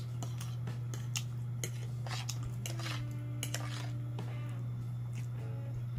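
Metal fork clicking and scraping against a plate as food is scooped up, a scattered run of short sharp clinks. A steady low hum lies underneath.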